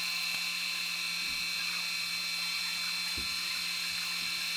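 Boring machine spindle running steadily with a high whine, its cutter boring a fastener hole out to size in an aluminium BMW cylinder head.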